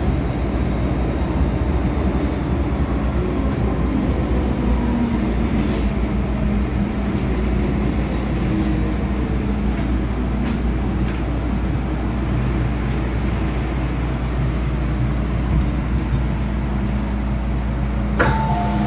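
MTR M-Train electric multiple unit slowing along a station platform and stopping, heard from inside the car: a steady rumble of wheels and traction motors with a low hum. A sharp knock sounds near the end as the train comes to a halt.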